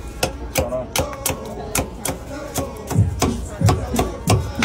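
Knife cutting a rack of smoked pork ribs into single ribs, the blade striking a wooden cutting board in a quick, uneven run of sharp knocks.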